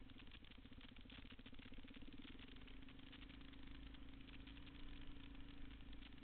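Single-cylinder engine of a dual-sport motorcycle heard faintly, running steadily at low speed. It picks up slightly in pitch during the first couple of seconds, then holds steady.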